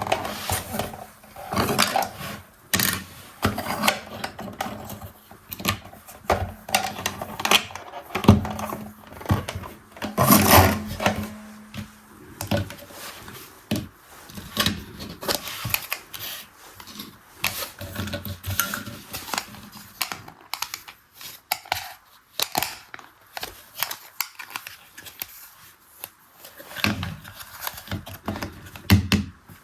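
Small plastic parts of a hand-operated toy washing machine being handled: irregular clicks, taps and light rattling, with a louder clatter about ten seconds in and a quieter stretch after twenty seconds.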